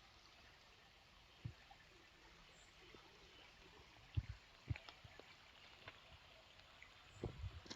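Faint, steady rush of a stream, with a few soft low thumps.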